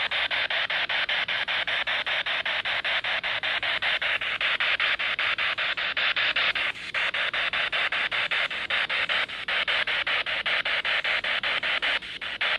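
Spirit box radio scanner sweeping through stations: a steady band of static chopped into rapid, evenly spaced pulses several times a second, with a few brief dips.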